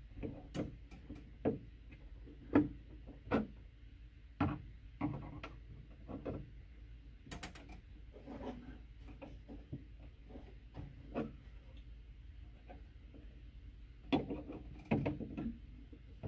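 Irregular small clicks, taps and scrapes of hand work at a metal electrical box as the bare copper ground wire is wrapped around a screw with needle-nose pliers. There are a few sharper knocks in the first few seconds and a cluster near the end.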